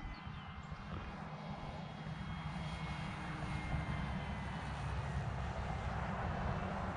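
Electric motor and propeller of a Flex Innovations RV8 G2 60E radio-controlled plane whirring steadily in flight, growing gradually louder as it comes closer. A low rumble sits underneath.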